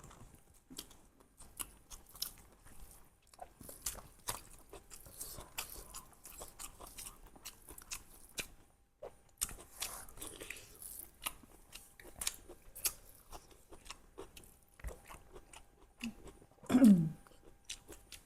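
Chewing and crunching of spicy duck curry, with many small wet clicks and crackles. Near the end comes a loud, short vocal sound that falls in pitch.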